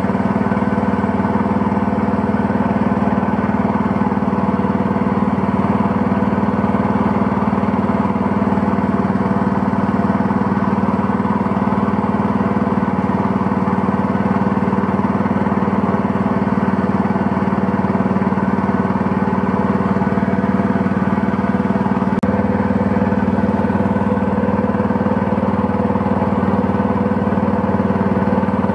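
Small wooden boat's engine running steadily at an even speed, a continuous low drone that holds its pitch throughout.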